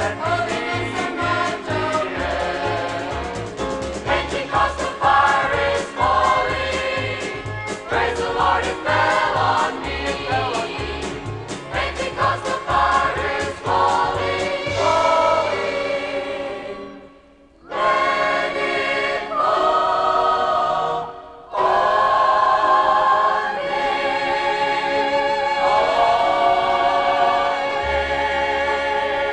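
Gospel choir singing with band accompaniment and a steady bass beat. About 17 seconds in the music breaks off twice for a moment, then the choir sings long held chords that fade out near the end.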